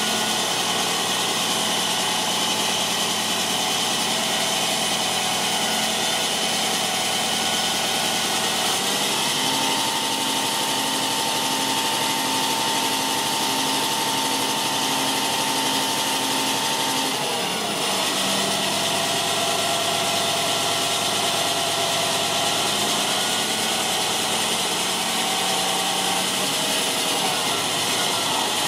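2006 Mack CXN613 hook lift truck's diesel engine running while the hook-lift hydraulics move the hook arm. About a third of the way in the engine speeds up and holds a higher, steady note with a steady whine over it. After several seconds it drops back to idle.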